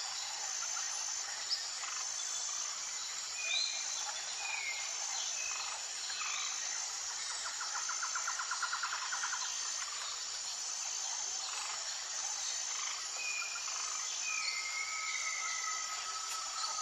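Tropical jungle ambience: a dense, steady chorus of insects with a high buzz pulsing at even intervals, and scattered short bird whistles over it. A rapid rattling trill comes about halfway through, and a long held whistle near the end.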